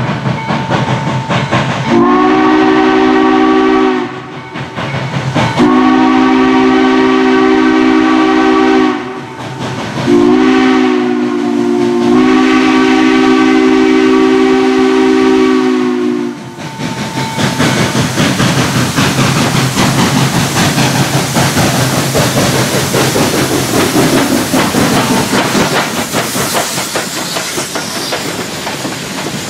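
Steam whistle of the 2-6-6-2 Mallet locomotive Western Maryland 1309 sounding three long blasts of several tones at once, the last the longest, as it approaches a road crossing. Then the locomotive works past close by, its exhaust and running gear followed by the tender and passenger cars rolling over the rails with a clickety-clack.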